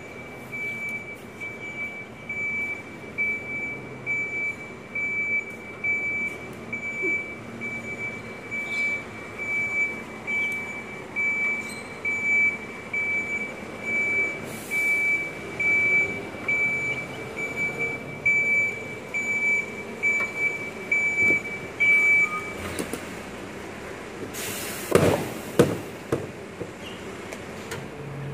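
Reversing alarm of a Volvo FE 300 refuse truck beeping evenly as it backs up, over its diesel engine running. The beeping stops about three-quarters of the way through, followed by a short hiss and a few loud clunks.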